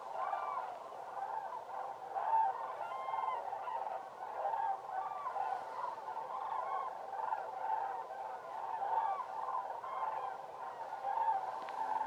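A large flock of common cranes calling: many overlapping bugling calls in a continuous chorus.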